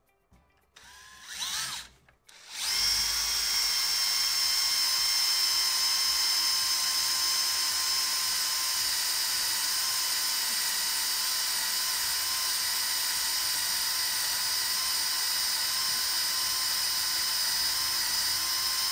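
Handheld power drill with a small twist bit drilling into a broken screw in a steel block. A short rev about a second and a half in, then a steady high whine with the bit cutting into the screw from about two and a half seconds on.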